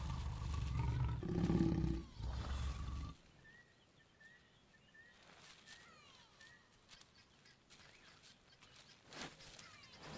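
Mating lions growling: two deep growls over about three seconds, the second cut off suddenly. Faint bird chirps follow.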